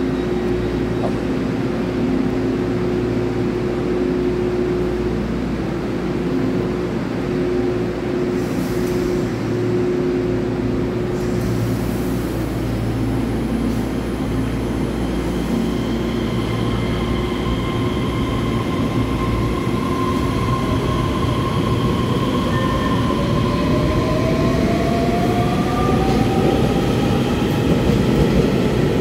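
EMU3000 electric multiple unit pulling out of the station, with a steady electrical hum at first. From about two-thirds of the way in, a motor whine rises in pitch as the train gathers speed, over the rumble of wheels on rail.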